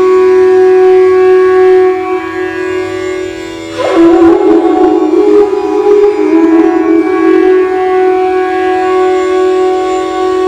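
Bansuri (Indian bamboo flute) improvising inside the stone chamber of an empty ancient water tank, which gives it a full, echoing sound. A long held note is broken about four seconds in by a sharp accented attack and a quick run of ornamented notes, then settles back onto the held note.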